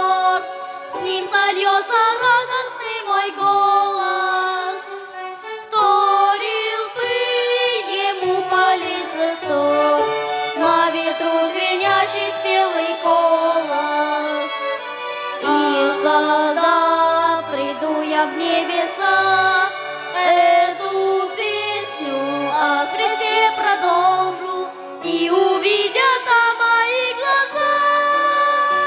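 Music from a small church ensemble, with violin among the instruments playing melodic lines over a low accompaniment.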